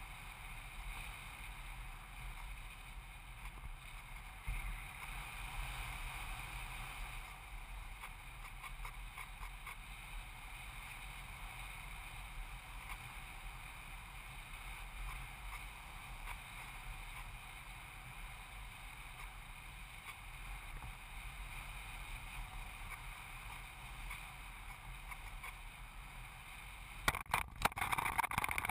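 Onboard sound of a foam EasyStar RC plane in flight: a steady rush of air and airframe hum. Near the end, a louder run of scraping and knocks as it touches down and slides on dirt.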